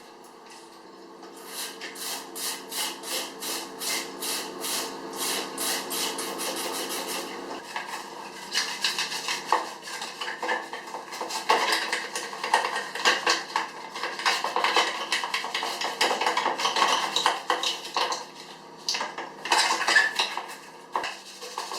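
Hard plastic keyboard parts, most likely keycaps, clattering and clicking against each other as they are cleaned. It starts as a run of sharp clicks a few per second that gets quicker, then becomes a denser, irregular clatter.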